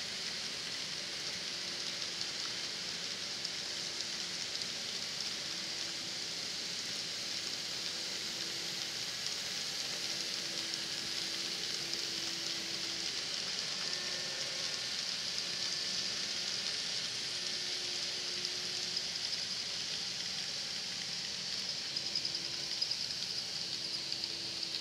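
N scale model freight train running on its track: a steady hiss from dozens of small freight-car wheels rolling on the rails, with a faint motor hum that comes and goes.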